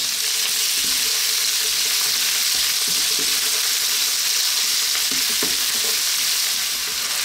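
Diced onions, potato cubes and garlic-ginger paste sizzling steadily in hot oil in a nonstick skillet on a fairly vibrant heat, while a wooden spoon stirs them around the pan.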